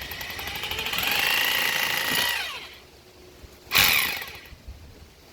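Electric hammer drill run briefly with a motor whine that builds, holds, then drops in pitch as it winds down; a second short, loud burst from it comes about four seconds in.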